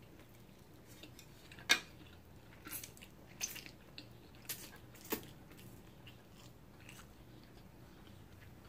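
Close-miked mouth sounds of a person eating instant noodles: slurping them in and chewing. There are a handful of short, sharp wet smacks and clicks with quiet stretches between them.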